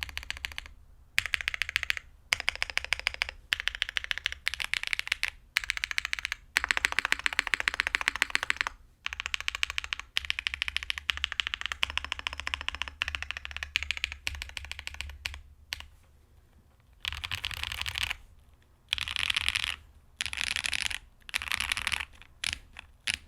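Typing on an ai03 Vega mechanical keyboard with Black Cherry Pie linear switches (JWICK bottom housing, Cherry top, Kailh black stem, 63.5 g slow spring) on a POM plate, case foam fitted: fast runs of keystrokes in bursts of a second or more with short pauses between, the last few bursts near the end shorter.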